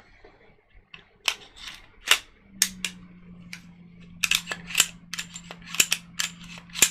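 Glock 23 pistol's slide and trigger being worked by hand, a quick irregular series of sharp metallic clacks and clicks starting about a second in. The freshly cleaned and lubricated action is being cycled to check that it runs smooth.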